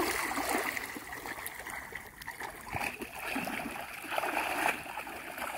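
Shallow muddy water splashing and sloshing as people grab at a fish and wade through it, with louder splashes at the start and again about four seconds in.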